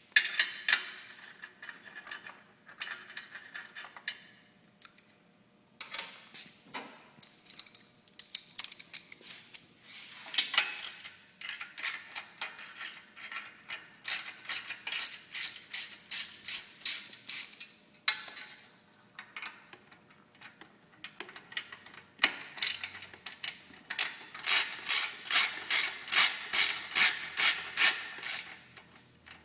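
Hand ratchet clicking in long, fast runs as the 1/2-inch nuts on the motorcycle exhaust's head-port bolts are backed off, with a few single knocks between runs.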